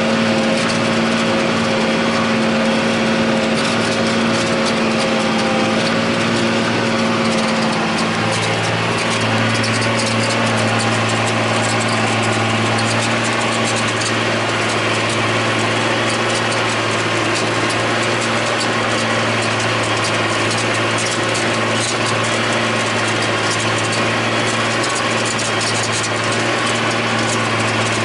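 John Deere 8100 tractor's six-cylinder diesel running steadily under load while pulling a disk ripper through the soil. About eight seconds in the engine note drops to a lower, deeper pitch.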